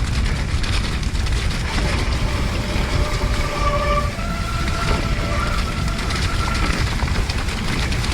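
Electric mountain bike descending a rough, wet trail: steady rumble and rattling from the bike over the ground, with wind buffeting the camera microphone. Brakes squeal in short high tones a few times around the middle.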